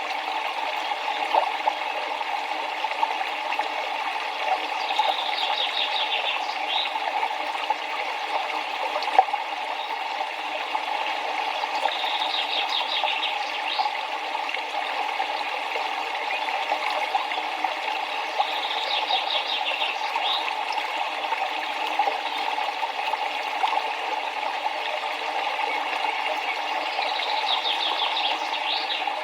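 Steady rushing of river water, with a small bird singing a short, rapid trill that recurs about every seven seconds.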